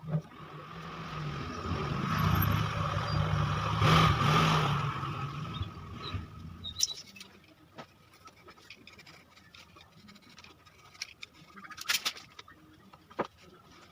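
A motor vehicle passing by: its engine hum swells to a peak about four seconds in and fades away by about seven seconds. A few sharp knocks follow near the end.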